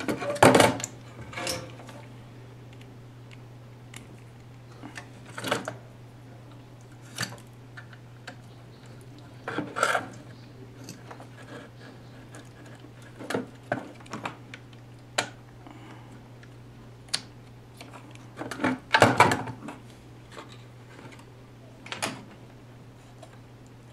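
Workbench handling sounds: scattered clicks and clatters of tools and a circuit board being handled in a plastic enclosure, with a louder clatter about 19 seconds in. A steady low hum runs underneath.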